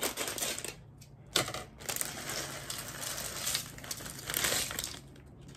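Plastic snack bag of rice crackers crinkling as it is snipped open and the crackers are shaken out into a bowl of popcorn.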